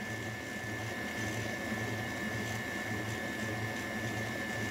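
Electric stand mixer running steadily with its flat beater working through soft pizza dough: a motor hum with a high whine, pulsing about twice a second as the beater goes round.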